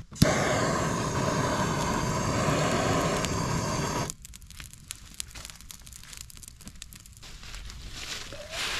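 A handheld propane torch clicks alight and hisses steadily for about four seconds as it is held to campfire kindling, then cuts off sharply. After that comes a light, irregular crackling from the catching twigs.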